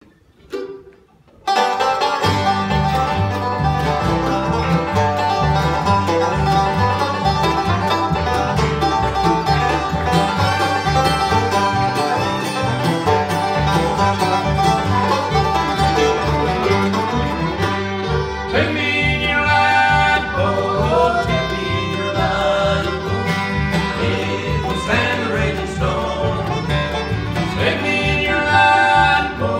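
Acoustic bluegrass band playing live: banjo, fiddle, mandolin, acoustic guitar and upright bass all come in together about a second and a half in. Voices start singing about eighteen seconds in.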